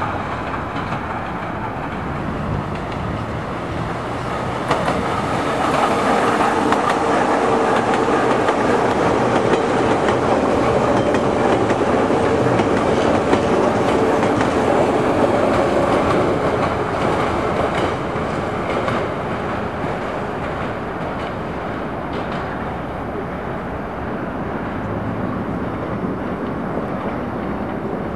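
E-series metro train running past on surface track, wheels rolling on the rails with a steady tone over the noise. The sound swells as the train comes closest about six seconds in and eases off after about seventeen seconds.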